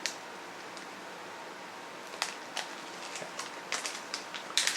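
A small packet of candy being opened by hand: about half a dozen light, scattered clicks and handling noises over a faint steady hiss.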